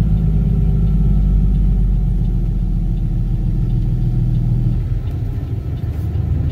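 Semi truck's diesel engine and road noise heard inside the cab while driving, a steady low drone. The deep engine note drops off about five seconds in.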